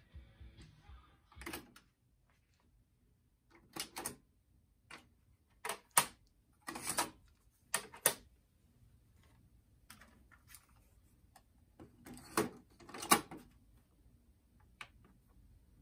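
Clicks and clunks of a Tascam 103 cassette deck being worked by hand: the cassette door ejected open, the tape taken out, another cassette pushed in and the door shut. A dozen or so sharp separate clicks, the loudest about six seconds in and again near thirteen seconds.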